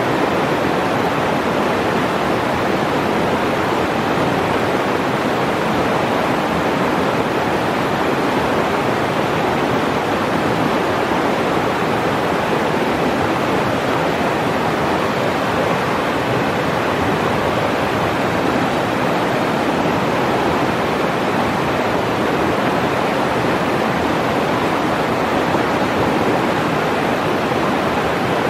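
Fast, shallow mountain river rushing over rocks and boulders: a steady, even rush of whitewater.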